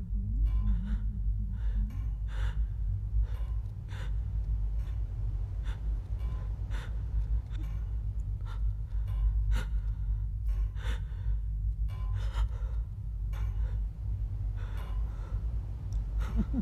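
A person crying quietly in short, shaky gasping breaths, about one or two a second, over a low steady hum.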